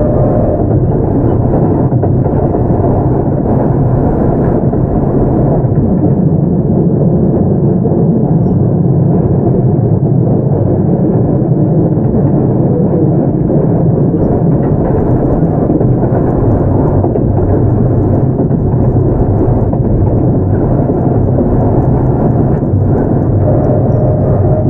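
Keio 8000 series electric train with Hitachi GTO-VVVF control running at speed, heard from inside the car: a steady rumble of wheels on the rails, with a faint rising whine coming in near the end.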